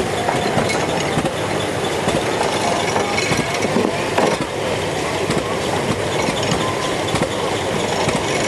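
1890s hay baler running, a steady mechanical clatter full of irregular knocks and clanks.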